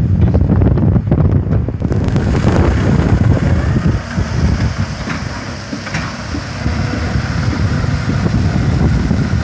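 Old farm tractor's engine running as it tows a loaded water-tank trailer, heavily buffeted by wind on the microphone. About two seconds in a steady hiss comes in as water starts pouring from the trailer's rear gravity spray bar onto the road.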